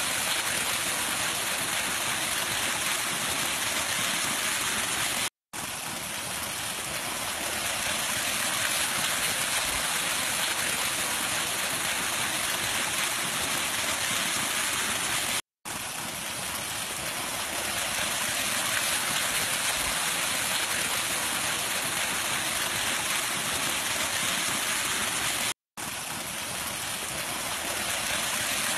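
Fast water gushing and frothing over grass and leaves as a steady rushing noise. It cuts out to silence for an instant three times, about ten seconds apart.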